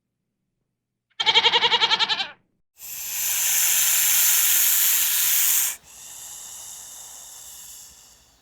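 A goat's short, wavering bleat, then a long, loud hiss that drops to a quieter hiss and fades out.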